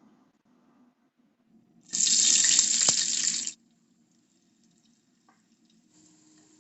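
Running water, loud and brief: a burst of about a second and a half that starts and stops abruptly.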